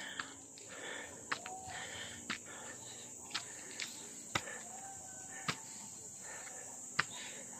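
Steady high-pitched drone of crickets or similar insects, with sharp footsteps on concrete stairs landing roughly once a second as someone climbs.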